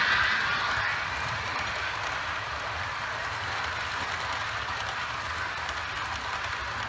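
Model train of coaches running past on the track: a steady rumble and hiss of wheels on rail, loudest at the start and easing slightly as it moves away.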